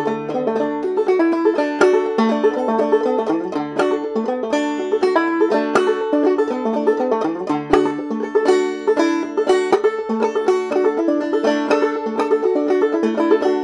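Open-back banjo played clawhammer style, solo and without singing: a steady, even run of quick plucked notes.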